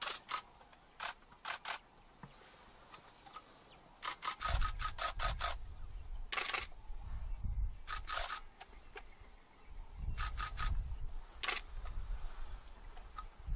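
Camera shutters clicking, in single shots and in quick bursts of several frames a second. A low rumble runs under them from about four seconds in.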